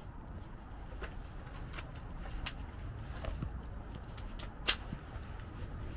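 Low wind noise on the microphone, with a few faint ticks and one sharp, brief crack about three-quarters of the way through.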